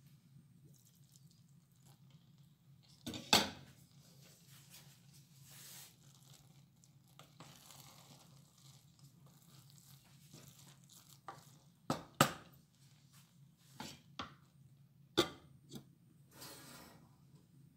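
Scattered knocks and scrapes of a wooden spoon and a glass lid against a stainless-steel saucepan of cooked sushi rice, over a faint low hum. One sharp knock comes about three seconds in, and a cluster of clinks comes between about twelve and sixteen seconds.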